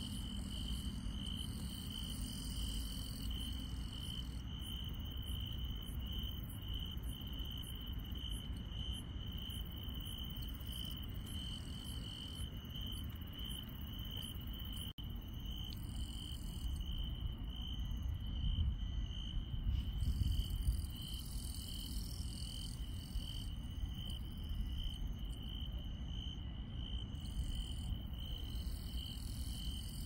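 Crickets and other night grass insects chirping: one steady pulsing chirp holds throughout, while higher trills come and go above it over a low rumble.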